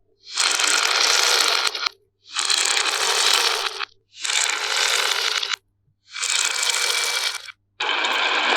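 Marbles rolling along a handmade course of rain gutter and wooden rails with a continuous rattling scrape, heard as five short stretches of a second and a half to two seconds, each cut off abruptly by a brief silence.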